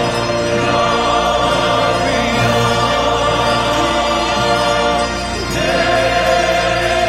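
Choral music: a choir singing long held notes over instrumental backing, the chord changing about five and a half seconds in.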